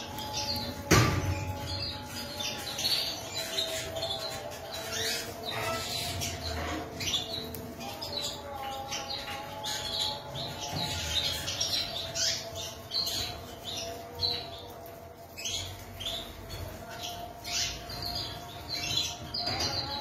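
A flock of domestic canaries chirping, many short high chirps from several birds overlapping, with wings fluttering as birds move between perches. A single sharp knock about a second in.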